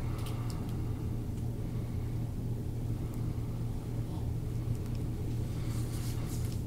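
Steady low hum, with a few faint soft clicks and rubbing sounds as a forearm works deep-tissue massage into an oiled upper back.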